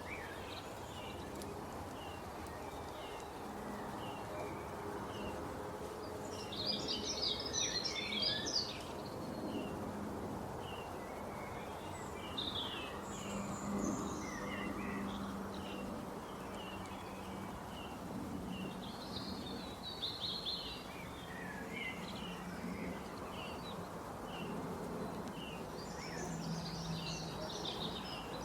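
Several birds chirping and singing: a steady run of short repeated chirps, with louder, busier flurries of song about a quarter of the way in, around the middle, and near the end, over a steady background hiss and low hum.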